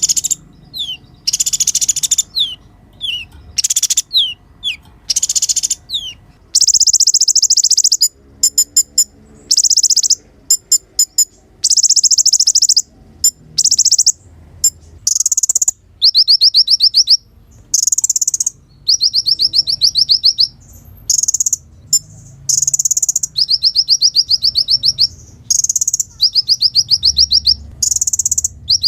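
A kolibri ninja sunbird singing: high, thin chirps and short falling whistles give way about six seconds in to fast rattling trills and buzzy runs, repeated in quick bursts.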